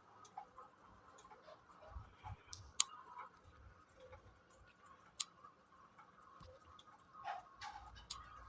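Faint, irregular clicks and ticks, a few sharper ones standing out, over a low steady background hum.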